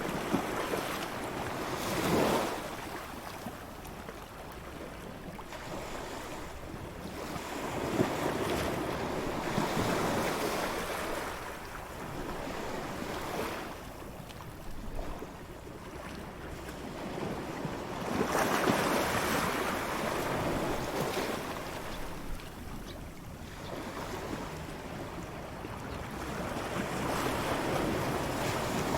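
Ocean surf on a beach: waves break and wash up the sand, rising and falling in swells several seconds apart, about four in this stretch, with a light wind.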